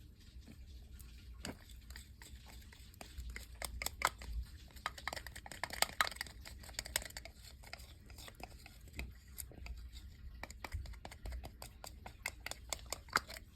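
Faint, irregular clicking and crackling of sticky slime ingredients being handled and mixed, busiest in the middle.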